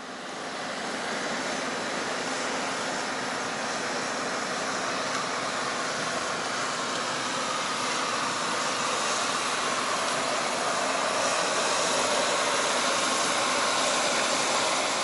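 A DHC8-Q400 turboprop airliner's turbine running at its stand: a steady rushing noise with a faint whine, rising slightly in pitch about halfway through.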